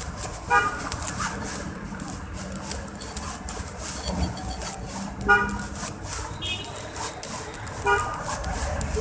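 Street background noise with four short car-horn toots spread through it, over traffic and murmuring voices.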